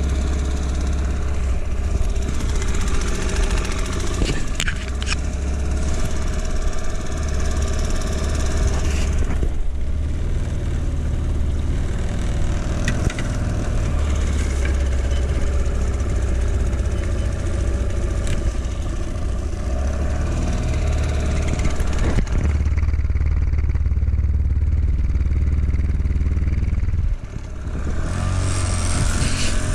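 Hangkai 6 hp two-stroke outboard motor running steadily at low throttle during its break-in. Near the end its sound dips briefly, then picks up again.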